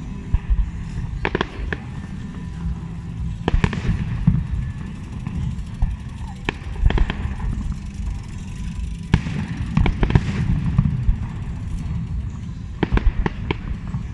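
Aerial fireworks display: irregular sharp bangs from bursting shells, some in quick pairs, over a continuous low rumble.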